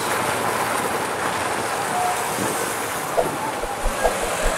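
Steady, even rushing road noise from a vehicle riding along a rough dirt road: wind and tyre noise over a running engine.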